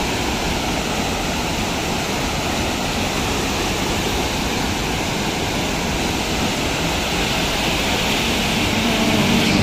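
Muddy flash-flood water rushing in a fast torrent, a steady, dense rushing noise of turbulent water.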